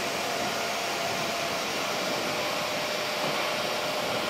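A poster collator and polybagger packaging line running near full speed: a steady, even machine noise with a faint constant high tone and no separate knocks or breaks.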